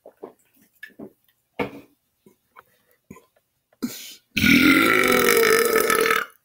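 A man's deliberate belch, loud and long, lasting about two seconds with a wavering pitch, starting a little past the middle. Before it come a few short, faint sounds.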